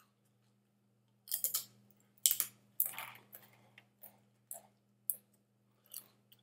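A person chewing a mouthful of food, heard as a handful of short mouth noises spread over several seconds, the strongest in the first half.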